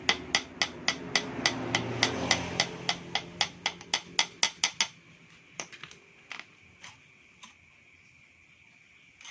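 Hammer tapping on scooter engine parts: a quick, even run of sharp taps, about four a second, for some five seconds, then a few slower, spaced-out taps.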